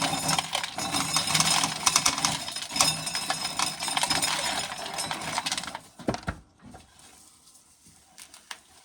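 Corn sheller stripping kernels off an ear of corn: a dense, fast clattering rattle that stops about six seconds in, followed by a couple of knocks.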